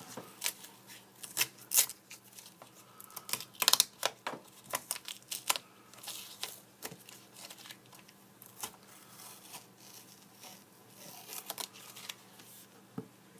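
Masking tape being peeled off the corner and edges of a board in a run of short, irregular rips, loudest in the first few seconds and sparser after that.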